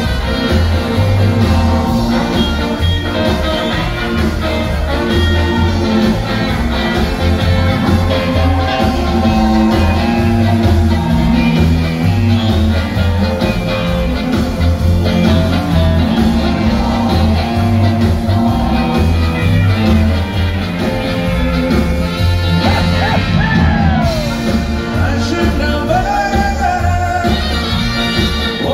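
A country band playing live in a theatre, heard from the audience: full band with a steady pulsing bass and drum beat under guitars and other instruments.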